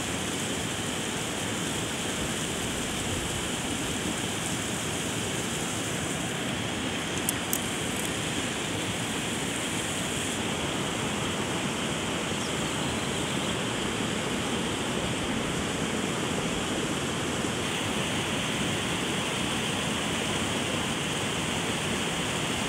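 Steady rush of flowing river water, an even wash of noise with no let-up. Two short sharp clicks about seven seconds in.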